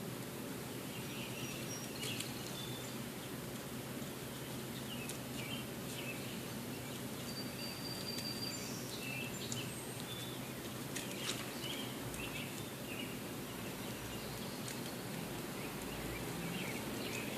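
Outdoor ambience: a steady low background hum with scattered short bird chirps and whistles.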